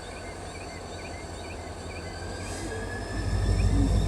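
CSX diesel locomotive engine running with a low rumble that grows louder about three seconds in.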